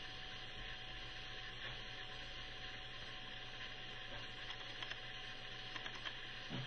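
Steady hiss with a low electrical hum, the background noise of the recording, with a few faint clicks near the end.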